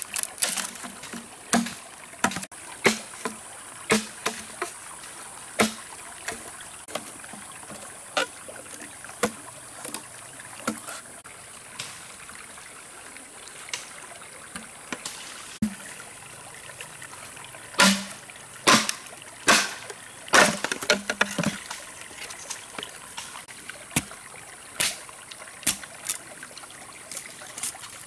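Water splashing and dribbling in short, separate strikes at an irregular pace, busiest about two-thirds of the way through, over a steady high hiss.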